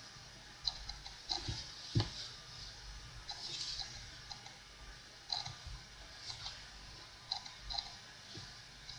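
Small clicks and brief rustles of hands and playing cards being handled on a wooden table, with a single soft knock about two seconds in.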